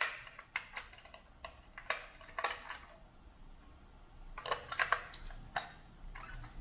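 AA batteries being pressed one by one into the plastic battery compartment of a radio alarm clock: a series of sharp, irregularly spaced clicks and clacks.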